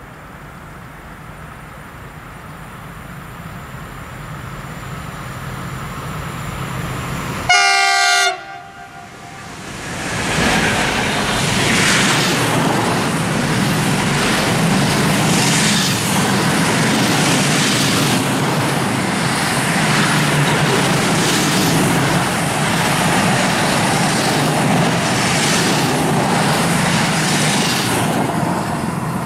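A RoLa rolling-highway freight train, an Re 486 electric locomotive hauling lorries on low-floor wagons, approaches with a rising rumble. It sounds one short horn blast about eight seconds in, then passes close by with a steady loud rush of wheels on rails and a clatter that pulses about every two seconds. It eases off near the end.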